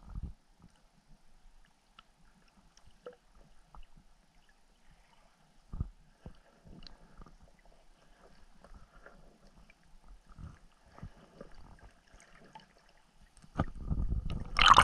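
Muffled underwater sound from a submerged camera, mostly quiet with a few soft low thumps, then a loud rush and slosh of water starting a little before the end.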